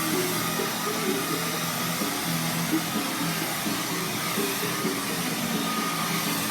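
Hair dryer running steadily, a constant airy hiss, with music playing underneath.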